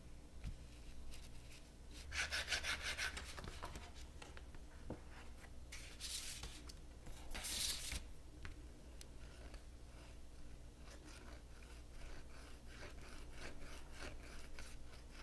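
Faint rubbing and handling of paper on a tabletop, with a sheet pressed onto wet acrylic paint and lifted off. A quick run of rubbing strokes comes about two seconds in, then two short swishes around six and seven and a half seconds, with small taps and rustles between.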